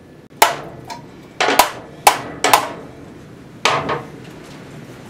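Hammer blows on the metal of a Tecumseh 5 hp snowblower engine: several sharp taps in ones and twos, each ringing briefly, to free a seized part that has only moved a little.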